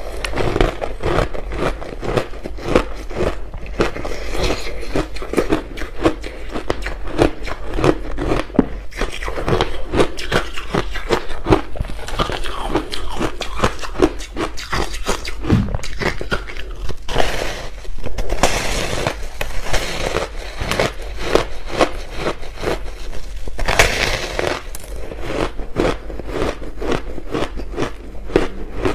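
Close-up crunching and chewing of large ice chunks coated in matcha and milk powder, bitten off in big mouthfuls. A fast, continuous run of crisp cracks and crunches.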